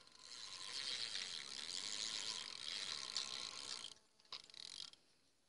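Fishing reel ratcheting in a continuous high, rasping run that stops sharply after about four seconds, followed by a couple of brief bursts.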